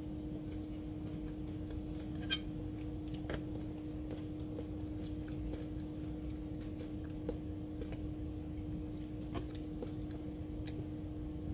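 Scattered faint clicks and taps of a knife and fork on a plate, the clearest about two seconds in, over a steady low hum.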